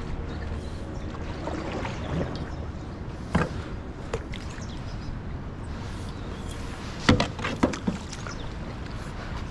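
A canoe being paddled: a steady low rumble with faint water sounds and a few sharp knocks, one about three seconds in and a cluster of the loudest ones about seven to eight seconds in.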